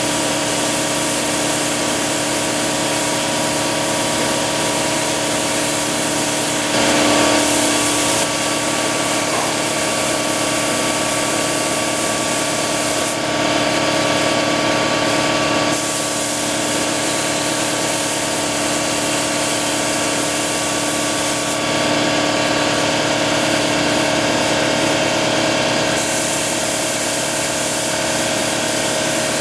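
Paint spray gun laying down clear coat, its hiss coming in three separate bursts, over a steady motor hum that runs throughout.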